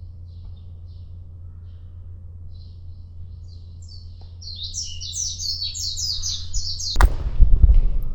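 Small songbirds chirping, building into a fast, loud run of high chirps, about four or five a second, through the second half. About a second before the end, a sudden loud rumbling thump and rustle cuts in and is the loudest sound.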